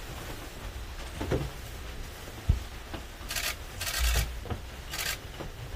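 Cleaning and handling noise in a subway car: short rustling, hissing bursts from cloths and plastic protective coveralls as grab handles are wiped down, with one sharp knock about two and a half seconds in.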